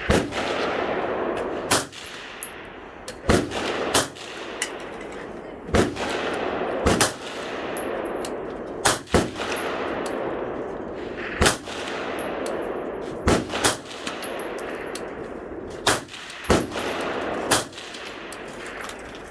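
Suppressed 5.56 shots from a Steyr AUG A3 M1 rifle with an OSS Gen 5 BPR26 suppressor, about a dozen single shots fired at an uneven pace, some in quick pairs, each trailing off in a lingering echo.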